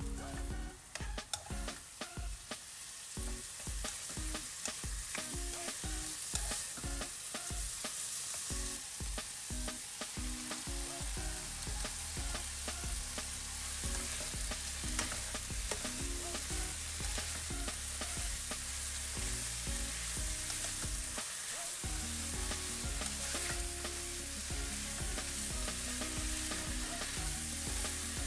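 Sliced pork belly, carrots and chilies sizzling in a non-stick wok as a spatula stirs and tosses them; partway through, a heap of Thai basil leaves and sliced chilies goes in and is stir-fried, still sizzling. Quick short knocks of the spatula against the pan come in the first half.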